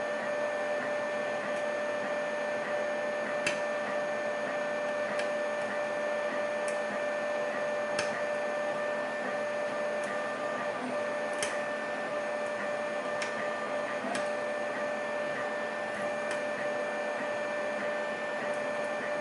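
Faint, sharp metallic clicks every second or two, about a dozen in all, from a lock pick working the pins inside a lock, over a steady whining hum with a constant tone.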